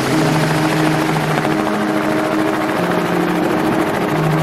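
Helicopter noise heard from inside the cabin: a loud, steady rush of rotor and engine with a fast, even beat.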